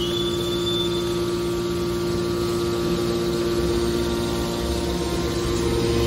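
Hydraulic power unit of a metal scrap baler running: electric motor and hydraulic pump giving a steady hum, with a high whine that fades out about a second in.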